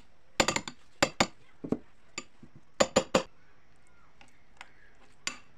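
Metal spoon clinking against a ceramic bowl while mixing cream into mashed banana: a series of sharp, irregular clinks in small clusters.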